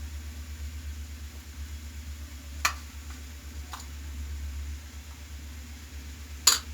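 Metal utensil clicking against a hot iron griddle while coconut-jaggery filling is laid on a patishapta crepe: a sharp tick about two and a half seconds in, a fainter one a second later and a louder clack near the end, over a steady low hum.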